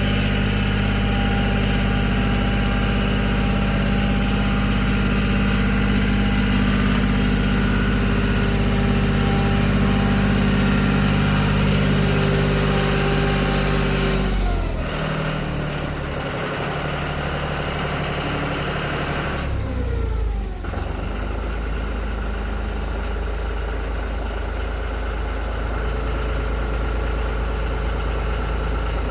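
Tractor engine running steadily while lifting a log onto a sawmill. Its engine note drops about halfway through and shifts again around two-thirds of the way.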